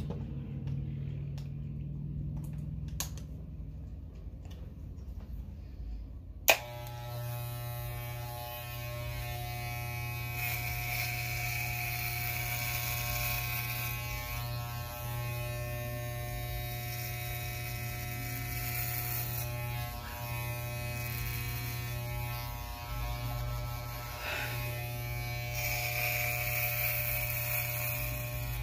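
A few small clicks, then a sharp click about six seconds in, after which electric hair clippers buzz steadily while cutting hair close to the scalp. The buzz dips briefly a few times, and a hiss of the blades cutting rises over it now and then.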